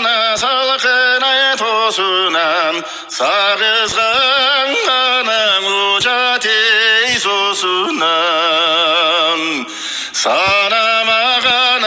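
A man's voice singing a Kyrgyz folk song with a strong, wavering vibrato, played back from the sound module of an Ala-Too cognac bottle. It sounds thin, with no bass, and pauses briefly twice.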